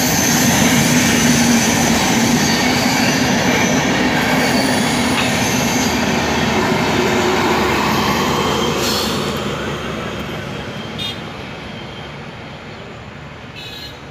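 Passing LHB passenger coaches and their trailing power car, wheels rumbling on the rails, with a thin high squeal through the first few seconds. The noise fades away over the last five seconds as the end of the train goes by.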